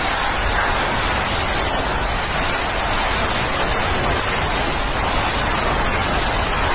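Hurricane-force wind and driving rain: a loud, steady rush of noise.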